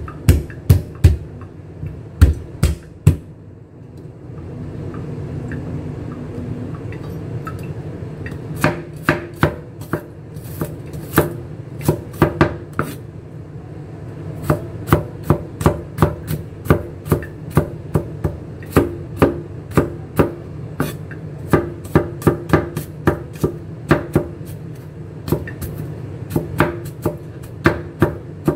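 Garlic cloves being chopped with a cleaver on a wooden chopping board. A few heavy knocks come first as the blade is pressed down on the cloves. Then, after a short pause, comes a steady run of mincing chops, about two to three a second.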